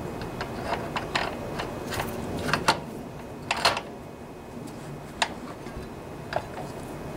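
Irregular metallic clicks and light knocks from hand tools and parts as a wheel is fitted back onto a walk-behind trimmer, the sharpest few a little over two and a half seconds in and near the middle.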